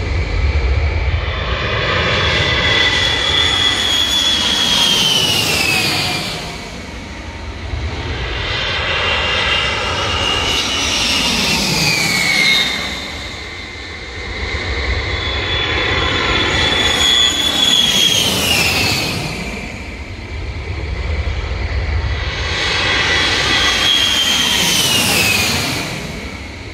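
Boeing 707-based E-3 Sentry AWACS passing low overhead on landing approach, its four TF33 turbofan jet engines whining over a deep rumble. Four passes come one after another, each swelling and then fading as the whine drops in pitch while the aircraft goes by.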